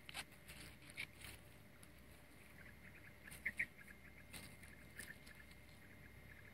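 Faint scraping and scratching of hands working a raw fish in a split bamboo tube, with a few sharper clicks scattered through, the loudest a pair about halfway.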